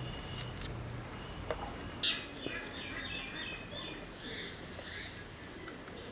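Small birds chirping, a quick run of short chirps through the middle, over quiet outdoor background noise. Near the start there are a couple of sharp clicks.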